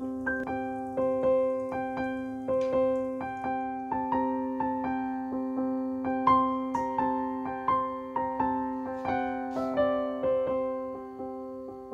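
Background piano music: a gentle keyboard melody of struck notes, about two a second, over a held low chord.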